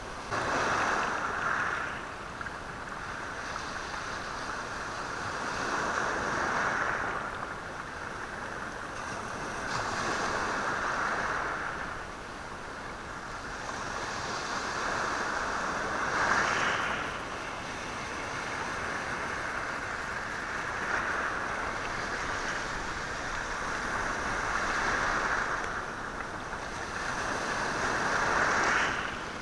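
Sea waves washing over a stony shore, the stones rattling in the surf. The wash swells and falls back every four to six seconds.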